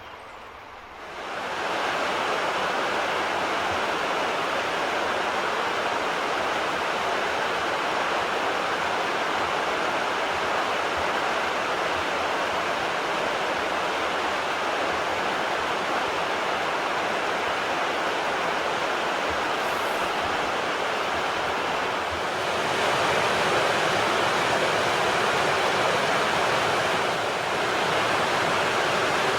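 Rushing water, a steady even rush that starts about a second in and grows louder about 22 seconds in.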